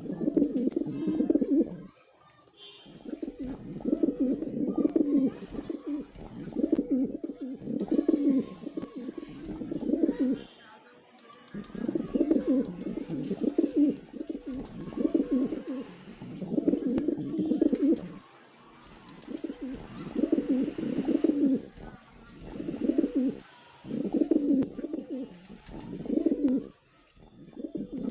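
Pigeons cooing in low, repeated phrases, one after another with only short pauses between them.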